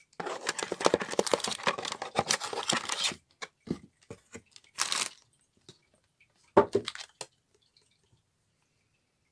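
Plastic bags of Lego pieces crinkling and rustling for about three seconds while the set's box is handled, followed by scattered plastic clicks, a brief rustle, and a sharp knock with a few clicks about seven seconds in as a Lego book-cover plate is lifted out.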